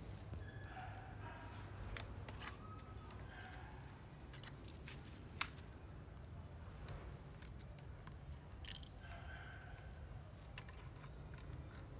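Pliers twisting and working thin wire against a plastic crate: scattered small metallic clicks, one sharper click about five and a half seconds in, over a steady low hum.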